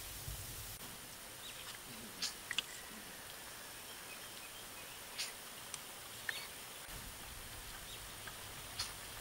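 Wet mouth sounds of people eating ripe, juicy soursop flesh: a handful of short, sharp lip smacks and sucks spread through, over a steady outdoor hiss with a faint high steady tone.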